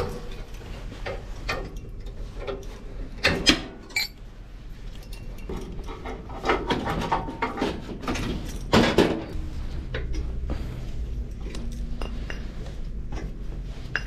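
Metal parts and tools clinking and knocking irregularly while an espresso machine is taken apart by hand. The loudest knocks come about three seconds in and again near nine seconds, over a steady low hum.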